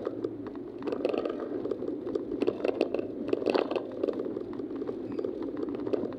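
Car driving on an open road, heard from inside the cabin through a dashcam's microphone: a steady rumble of road and engine noise, with a constant crackle and rattle of small clicks over it.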